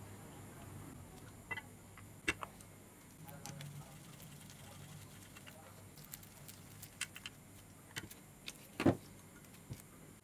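Scattered light clicks and small metallic knocks from the aluminium housing parts of a Makita circular saw being handled while a bearing retainer screw is driven in with a screwdriver, with one louder knock about nine seconds in.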